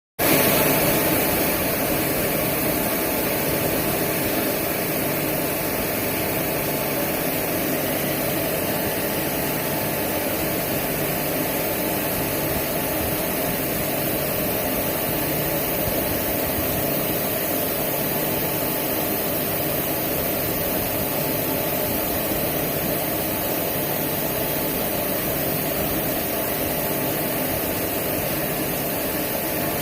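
Indian Railways WAP-4 electric locomotive running: a steady, unchanging hum and rushing noise with a few constant tones through it.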